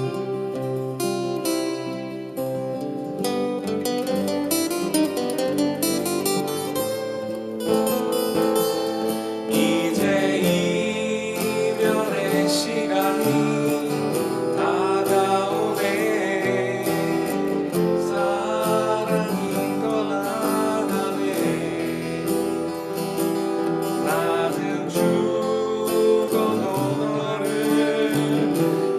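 Crafter steel-string acoustic guitar played through a song, with a man's voice singing along from about ten seconds in.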